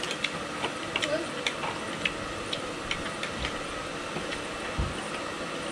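Spoons and forks clinking and scraping against ceramic plates and bowls while eating, in irregular light ticks several times a second, with a couple of dull low knocks about three and a half and five seconds in.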